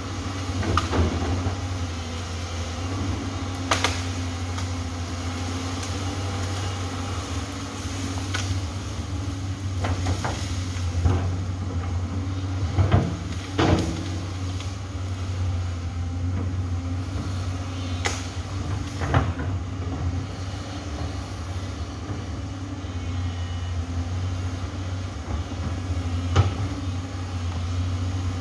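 Amphibious excavator's diesel engine running steadily under load, with scattered sharp knocks and cracks, about ten of them, the loudest about 13 seconds in.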